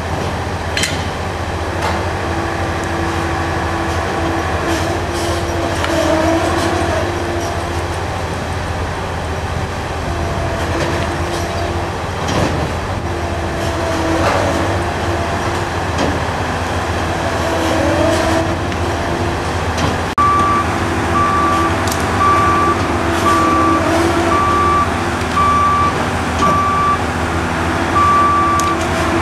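Heavy construction machinery running steadily, a Liebherr crawler crane's diesel and other plant, with a steady whine and a few short squeals over it. About two-thirds of the way through, a reversing alarm starts beeping at an even pace, about once a second.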